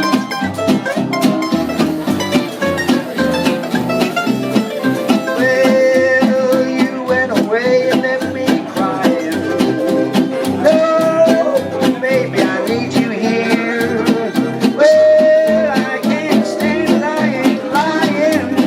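Live band playing an instrumental break in a country-blues song: strummed and picked guitars over a steady bass pulse, with a lead line of long, bending notes.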